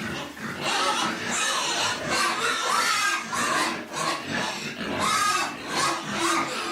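Piglets squealing: a dense run of short, high calls overlapping one another, with only brief dips between them.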